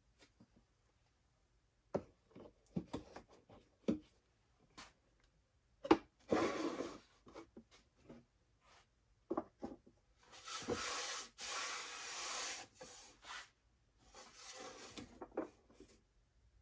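Wooden micrometer boxes handled on a workbench: light clicks and knocks, with one sharper knock about six seconds in, then wooden cases sliding across the bench top in several long rubbing scrapes.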